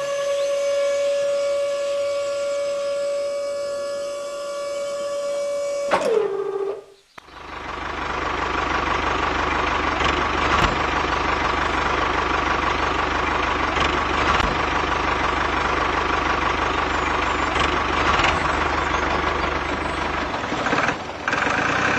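Small DC gear motor on a DIY mini tractor's grader blade lift whining at a steady pitch, its pitch falling as it slows and stops about six seconds in. About a second later a steady engine-like running noise with a low rumble starts.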